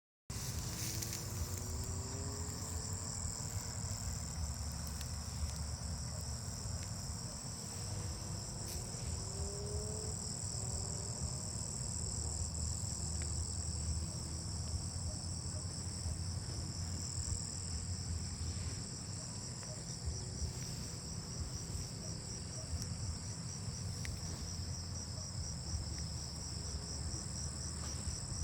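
Chorus of insects, crickets by the sound of it, giving a steady high-pitched trill with a fast pulse, over a low steady rumble.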